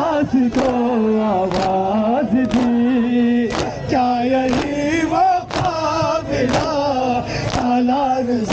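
A man chanting a noha lament in long, wavering held notes. A sharp strike lands in time with it about once a second, the crowd's hands striking their chests in unison in matam.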